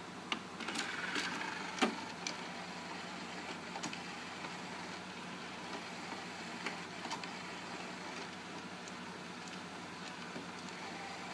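Five-disc CD changer mechanism of an RCA RS2664 compact stereo. The tray motors shut with a whir and a few clicks about a second in, then the carousel steps from disc to disc with occasional soft clicks as the player searches its trays for a disc.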